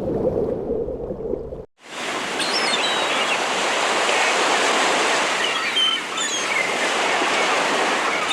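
Steady rushing noise like running water, with faint short high chirps, beginning after a brief break about two seconds in; before the break, a low rumbling noise.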